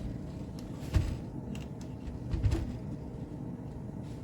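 A space heater being handled and nudged: a dull knock about a second in and a softer pair of thuds around two and a half seconds, over a low steady hum.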